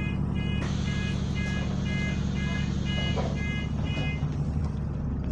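A bus's door warning beeper sounds a run of short, even beeps, about two a second for some four seconds, over the steady drone of the bus's idling diesel engine.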